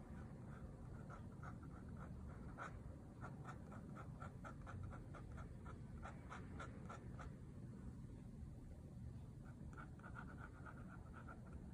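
Metal dip-pen nib scratching on paper in a quick run of short hatching strokes, several a second. The strokes pause for a couple of seconds, then start again near the end.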